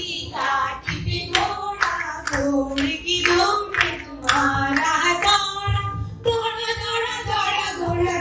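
Women singing a song together, with the group clapping along in a steady rhythm of about two claps a second.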